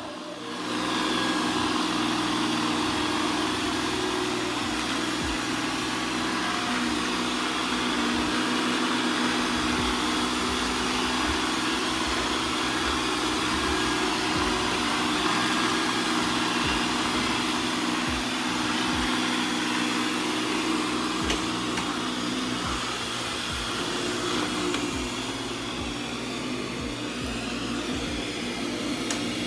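Ecovacs Deebot N79W robot vacuum running steadily as it cleans: an even suction motor and brush noise with a low hum and a high whine. It comes up about a second in.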